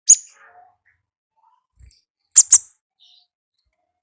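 Konin ninja (kolibri ninja) sunbird calling with short, sharp, high ticking chirps: one right at the start and a quick pair about two and a half seconds in.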